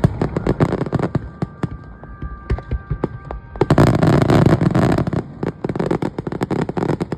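Aerial fireworks display: dense, rapid crackling and popping from many shells bursting at once, with a heavier, louder run of bursts about four seconds in. A steady high whistle sounds over the crackle in the first half.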